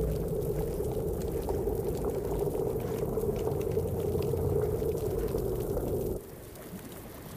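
Steady bubbling, watery underwater ambience that cuts off suddenly about six seconds in, leaving a quieter hiss.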